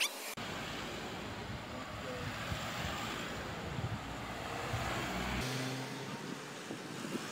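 Road vehicles of a race convoy, vans and an ambulance, driving past at moderate speed: a steady hum of engines and tyres on asphalt. The sound changes abruptly about five seconds in.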